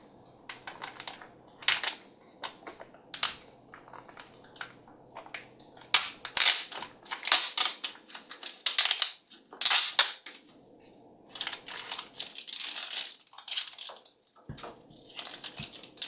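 Plastic packaging of a toy surprise being torn open and crinkled by hand: irregular sharp crackles and cracks, with denser bouts of crinkling near the end.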